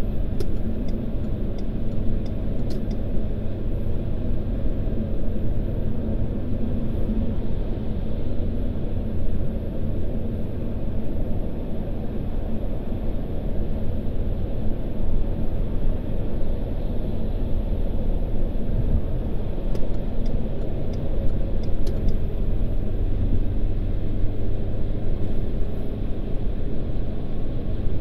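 Steady low road and engine rumble inside a moving car's cabin at road speed, with a few faint light ticks near the start and again about twenty seconds in.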